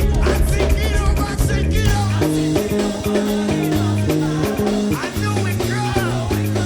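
Upbeat praise music: voices singing over a stepping bass guitar line, with drums keeping the beat.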